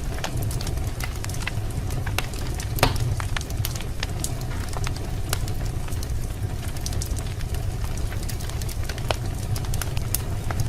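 Wood fire burning in a fireplace: irregular sharp crackles and pops over a steady low rumble of the flames, with one louder pop about three seconds in.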